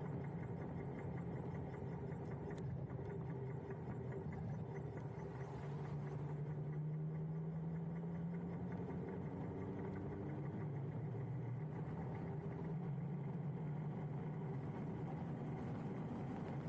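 Huck Cycles Stinger electric moped riding along at steady speed: a steady low hum from the hub motor over wind and tyre noise, the pitch rising slightly about halfway through. A fast, faint clicking from a loose camera mount runs under it.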